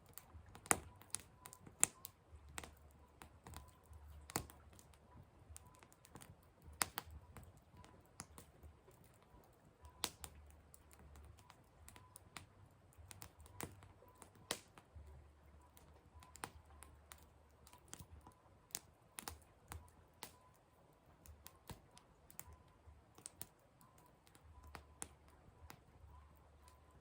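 Burning firewood crackling and popping in irregular sharp snaps, some loud, with many smaller ticks between them.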